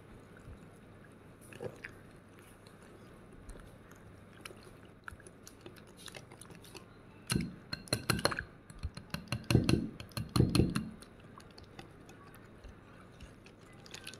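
Wire whisk beating a thin rice-flour batter in a bowl: faint swishing, with a run of sharp clicks and several louder knocks of the whisk against the bowl from about seven to eleven seconds in.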